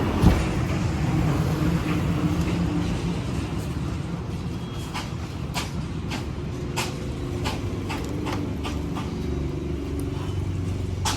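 Heavy diesel engine of a backhoe loader running steadily, with a sharp knock just after the start and scattered sharp clicks and knocks through the second half.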